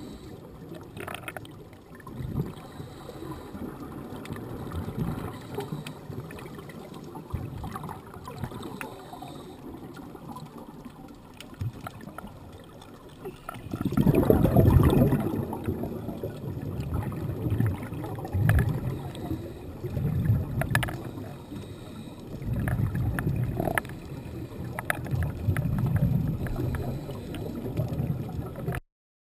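Underwater rush and gurgle of scuba regulator exhaust bubbles, heard through the camera housing. It comes in swells every few seconds, the loudest about halfway through, and cuts off suddenly near the end.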